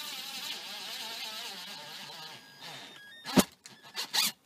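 Cordless drill driving a screw, its motor running for about two and a half seconds with the pitch wavering under load, then stopping. A sharp knock comes about three seconds in, followed by two shorter clatters near the end.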